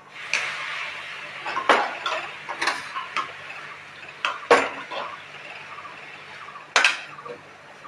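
An aluminium pot and a metal kadhai clank together on a gas stove, about six sharp knocks, as boiled dal is poured into a hot ghee tadka of cumin and hing. A steady hiss runs underneath the knocks.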